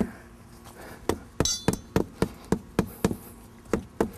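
Rubber mallet tapping a concrete paver block to seat it into its sand bed: a quick run of about a dozen dull taps, about four a second, starting about a second in.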